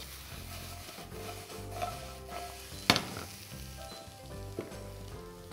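Fennel wedges and ginger sizzling in a frying pan, with a sharp clack about three seconds in and a couple of lighter knocks.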